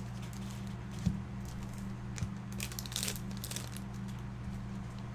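Trading card packs and cards being handled: short crinkling rustles of foil wrappers and card stock, the densest about three seconds in, with a soft knock about a second in. A steady low electrical hum runs underneath.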